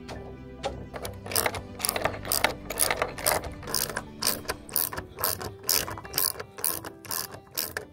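Socket ratchet wrench clicking as it turns the threaded height adjuster of a metal post base under a timber post, in short repeated strokes about two a second, starting about a second in. Each stroke sets the post's height by a small amount.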